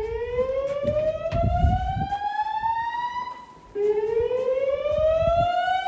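SpectrAlert Classic fire alarm speaker strobes sounding a whoop evacuation tone through the system's original analog AA-120 amplifiers. The tone is a slowly rising sweep that climbs for about three and a half seconds, then cuts off and starts again from the bottom, twice in all.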